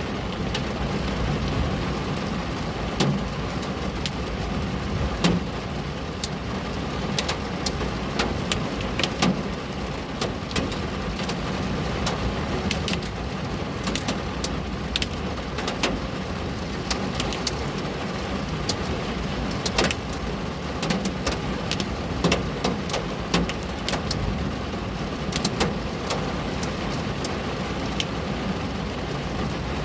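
Rain on a window: a steady hiss of rainfall with irregular sharp drops ticking against the glass, over a steady low rumble.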